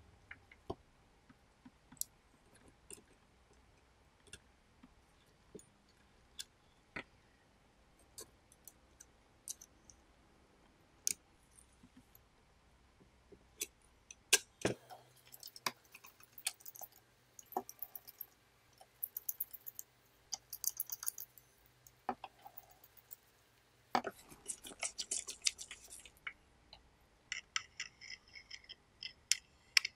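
Small clicks and taps of metal and plastic parts being handled on a disassembled cassette deck mechanism, sparse at first and busier from about halfway through, with scraping and rasping, and a run of quick repeated scratches near the end.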